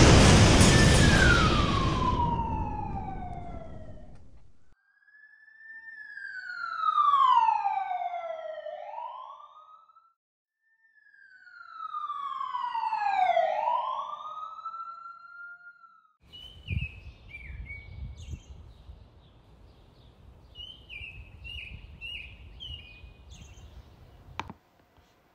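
A string of sound effects. First a loud explosion boom that dies away over about four seconds. Then two long swooping glides, falling and then rising like a siren, followed by a faint crackly stretch with short high chirps that ends on a sharp click.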